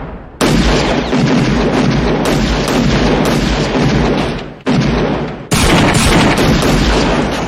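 A series of loud gunshots, about five, a second or two apart, each starting suddenly and trailing into a long booming tail that runs into the next.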